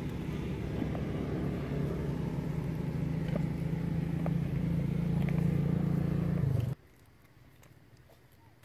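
A steady low engine hum, like a motor vehicle running nearby, cuts off suddenly about seven seconds in, leaving only faint outdoor background.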